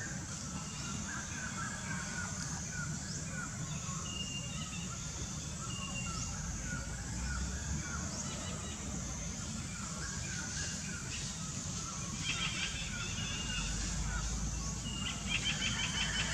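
Outdoor forest ambience of birds chirping over and over, with a few thin whistled notes and two quick rattling trills later on. A faint low rumble comes and goes underneath.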